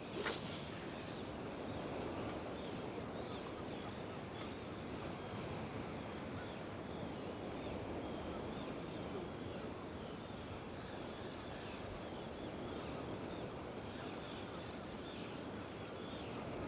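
A sea-fishing rod whipped through a hard cast at the start, followed by a hiss of line paying out that fades over the next few seconds as the mackerel feathers fly out. After that, steady wind and water with faint bird calls.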